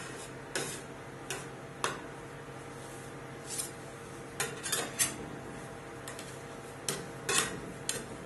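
Steel scrapers tapping and scraping on the frozen steel plate of a rolled ice cream machine while the chopped ice cream base is spread thin. They make irregular sharp clicks and short scrapes, about a dozen in all, over a steady low hum.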